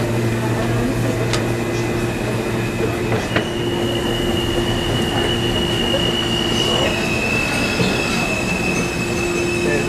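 New York subway train wheels squealing on the rails: a high steady squeal that sets in a few seconds in and drops a little in pitch about halfway through, over a continuous low rumble.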